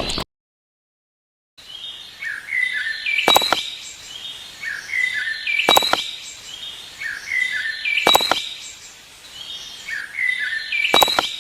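Bird chirps repeating in an identical loop about every two and a half seconds, each round a few short falling chirps with a sharp click.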